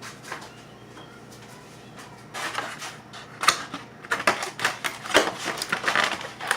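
Quick, irregular run of light clicks and clatters from kitchen items being handled, starting about two seconds in.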